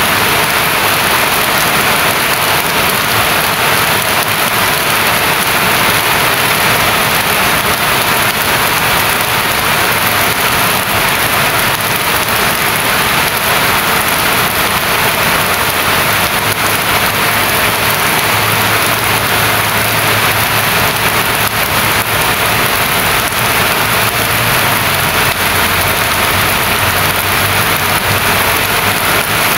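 Steady rain falling, an even rustling hiss that does not let up.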